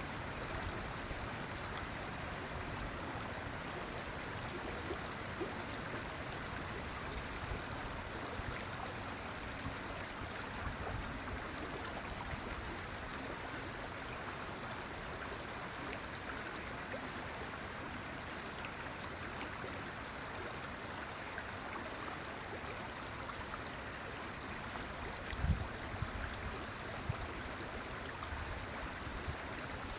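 River water flowing over rocks with a steady rushing and burbling. A few short low thumps come about 25 seconds in.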